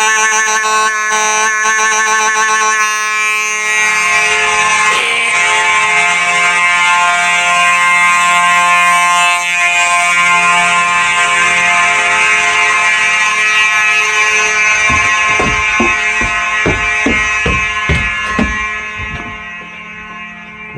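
Simplex 4903-series mechanical fire alarm horn sounding a continuous, loud, buzzy blare. It fades over the last few seconds.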